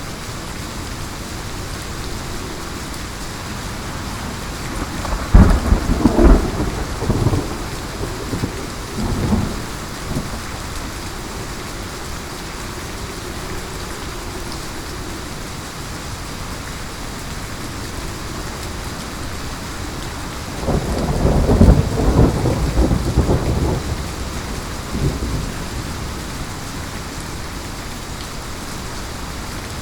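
Steady heavy rain with two rolls of thunder: a sharp crack about five seconds in that rumbles off over several seconds, and a second long rumble about two-thirds of the way through.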